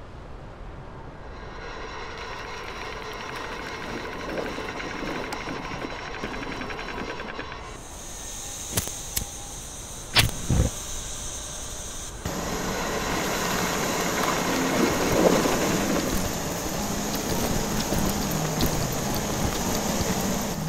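Sound-effects mix of a steam-driven brass machine: a mechanical hum that swells up, then hissing, a few sharp clanks about nine and ten seconds in, and a louder, steady churning machine noise in the second half.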